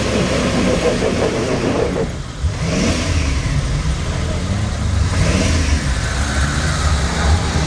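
Jeep CJ engine revving hard under load as it churns through deep mud; the revs drop briefly about two seconds in, then climb again and stay high.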